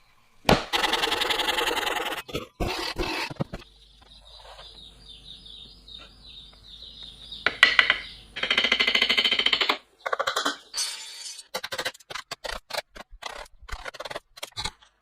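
Woodworking tool noises: two loud stretches of rasping, scraping work, with a fainter hum between them, then a run of short clicks and knocks.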